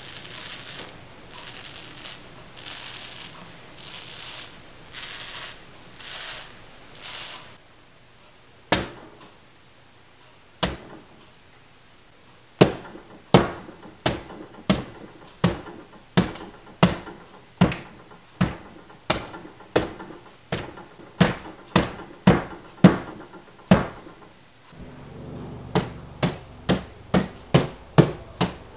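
A hand pressing the dried, crusty top of a shaving-foam iceberg slime, giving about seven soft crackly crunches. Then a hammer strikes the hardened crust again and again: two single blows, then steady strikes about one and a half a second, a short pause, and quicker strikes near the end.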